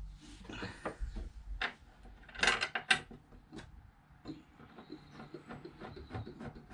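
Steel heater turret plate being set into a hole in a plywood van floor with bolts through its holes: scattered knocks and scrapes of metal on wood, loudest in a scraping rattle about two and a half seconds in.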